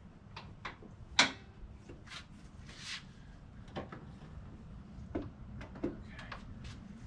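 Hood of a pickup truck being opened by hand: a sharp metallic clack about a second in as the hood latch lets go, then scattered clicks and knocks as the hood is lifted and held up.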